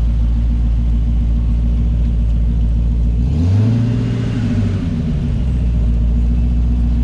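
Corvette V8 engine running at idle with a deep, steady rumble. About three seconds in it is revved once, the pitch rising and then falling back to idle within a second or two.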